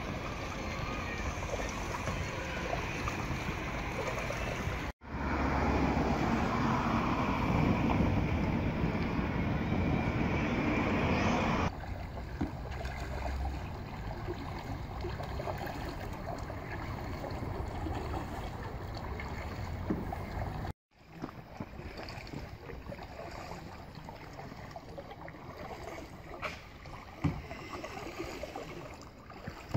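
Outdoor wind noise buffeting the microphone, loudest and deepest from about five to twelve seconds in, with the sound breaking off completely for a moment twice.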